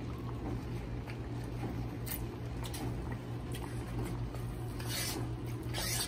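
A spoon stirring and scraping thick, steaming split-pea rice in a large aluminium pot, with soft squishing and a few brief scrapes over a steady low hum.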